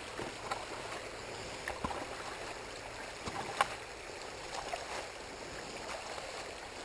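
Small spring-fed brook running over rocks: a steady babble and trickle with scattered small clicks and splashes, the sharpest one about halfway through.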